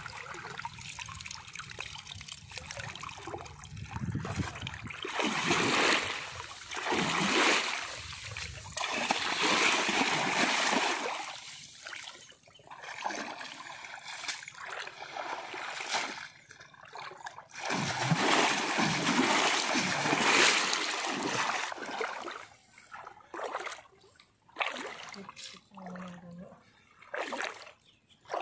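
Shallow pond water splashing and dripping as a wet fishing net is handled, lifted and laid out in it. It comes in several bouts of splashing with quieter stretches between.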